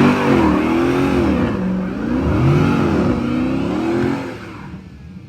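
Car engine revving, its pitch rising and falling several times before fading away about four seconds in.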